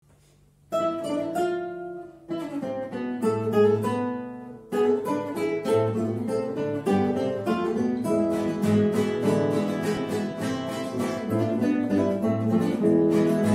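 An ensemble of four classical guitars playing a Spanish pasodoble with plucked and strummed notes. The playing starts just under a second in, breaks off briefly twice in the opening phrases, then runs on without pause from about five seconds.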